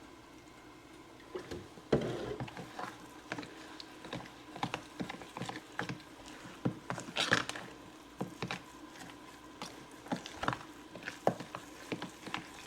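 Fork stirring wet cornbread batter in a mixing bowl, clicking and tapping against the bowl at an irregular pace of a few strokes a second. It starts about a second and a half in, after brief quiet.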